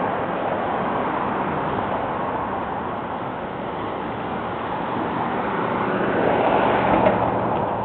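Street traffic noise, a steady wash of passing vehicles, swelling as one vehicle goes by about six seconds in, with a short knock near the end.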